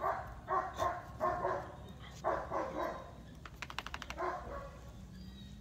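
A young dog barking, about six short, fairly high barks at uneven intervals, with a quick rattle of sharp clicks between the last two.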